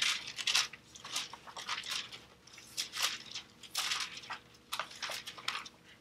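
Thin Bible pages rustling and crackling as they are leafed through and turned, a run of short irregular crinkles, loudest at the very start.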